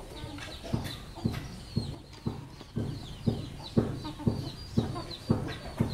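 Domestic chickens clucking and chirping, with a sharp knock about twice a second from an unseen source that is the loudest sound throughout.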